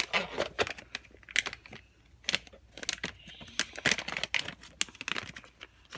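A squishy toy's blind-bag wrapper being crinkled and torn open by hand: a quick, irregular run of crackles.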